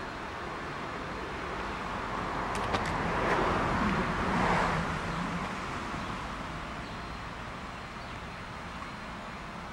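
A car passing by: a rush of tyre and engine noise that swells, is loudest about four seconds in, then fades away.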